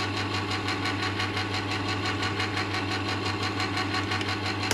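Electric can opener running steadily, its motor humming with a fast, even pulse as it cuts round the lid of a shallow pie tin.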